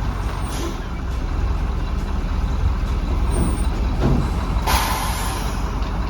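Heavy truck engine running with a steady low rumble, with a short, sharp burst of air-brake hiss a little under five seconds in.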